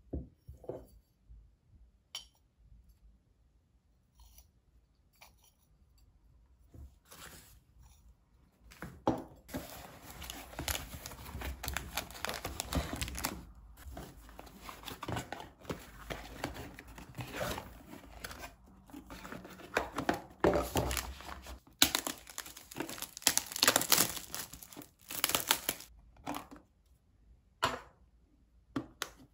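Lunchbox packaging being torn open and crumpled by hand: long runs of crinkling, tearing wrap, loudest about three quarters of the way in, after a few light taps and clicks.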